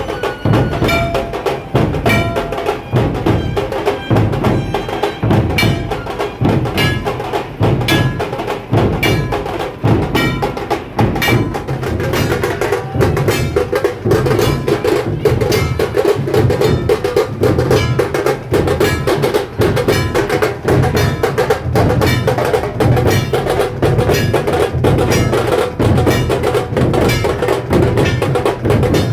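Dhol-tasha drumming: large dhol drums beating under a fast, continuous rattle of tasha strokes, loud and unbroken.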